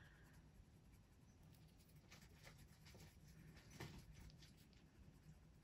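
Faint, short strokes of a Brutfuner oil-based colored pencil shading on paper, with one slightly louder stroke nearly four seconds in.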